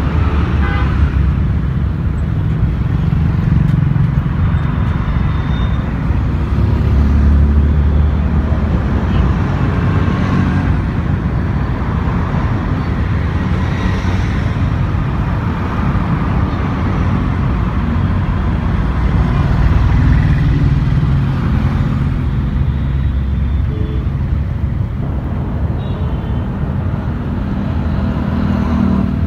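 Road traffic on a multi-lane city road: scooters, motorcycles and cars passing, a continuous engine and tyre rumble that swells each time a vehicle goes by.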